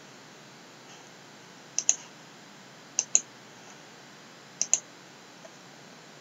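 Computer mouse button clicked three times, each a quick pair of sharp clicks (press and release), a second or so apart.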